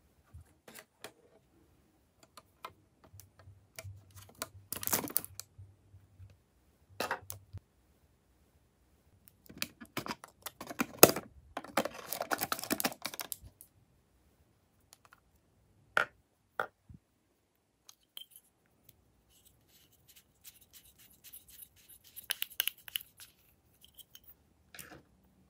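Plastic lip balm tubes, caps and a Lip Smackers tin handled close to the microphone: scattered sharp clicks and taps, with three longer spells of rustling and clattering, the longest and loudest around the middle.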